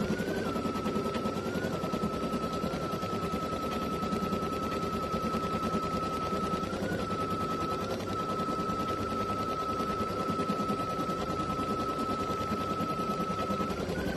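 Baby Lock Flare embroidery machine stitching a quilting design in the hoop: a rapid, even clatter of needle strokes over a steady high whine that briefly rises in pitch now and then.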